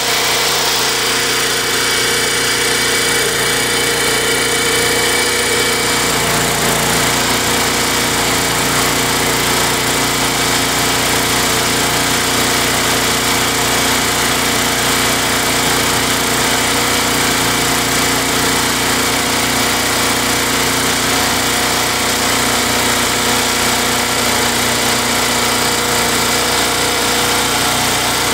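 Tecumseh 92cc single-cylinder engine on a Craftsman Eager 1 lawn mower, running at a steady speed without surging.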